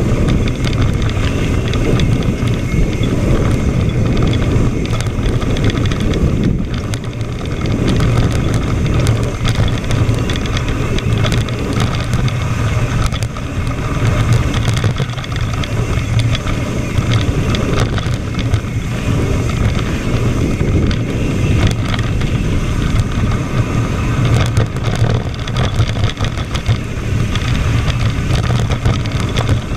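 Wind rushing over a GoPro's microphone during a fast mountain-bike descent of a dirt singletrack, a steady low rumble with constant small rattles and clicks from the tyres and bike on the rough, cracked trail.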